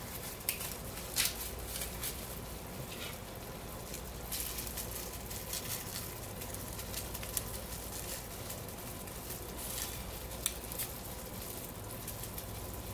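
Onions, tomatoes and spices cooking in a stainless steel pot, sizzling softly with many small crackles and pops, over a faint steady hum.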